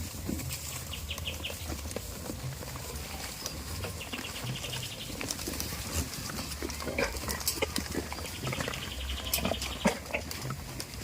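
Goats in a pen, with scattered clicks and rustles and a few short low grunting sounds. A high, rapid chirping trill repeats several times in the background.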